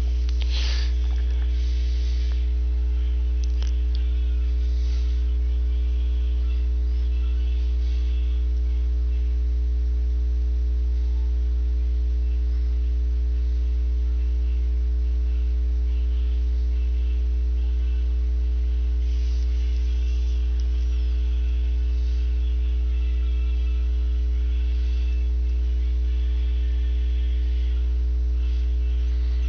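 Steady electrical mains hum, strong and unchanging, with a few fainter steady higher tones above it and a light hiss.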